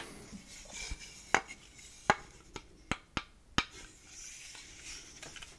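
Carved mango-wood salad hands being handled close to the microphone: soft rubbing with a run of about six sharp wooden clicks and taps in the middle.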